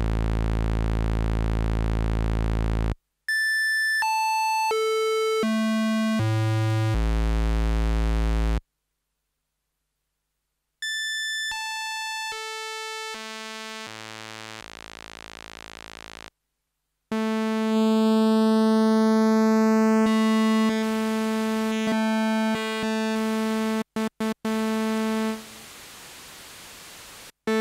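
Roland System-8 synthesizer playing the JX-3P plug-out: one held note jumps in octave steps as the DCO-1 range is switched between its foot settings, with short gaps between the notes. Later a steady note has a thin tone sweeping across it, then a quieter hiss follows.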